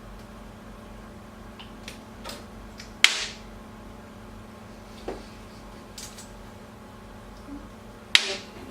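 Foley props being struck and handled for a live sound-effects recording: scattered small clicks and taps, with two sharp loud hits, about three seconds in and near the end, over a steady low hum.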